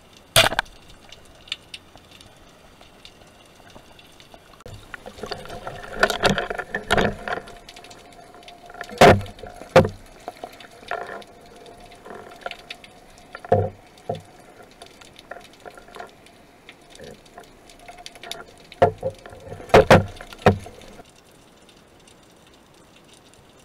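Speargun firing underwater with one sharp crack, followed by a long run of irregular knocks and clatter from the spear shaft and gear as a speared gilthead sea bream is handled, over bubbling water. The noise dies down near the end.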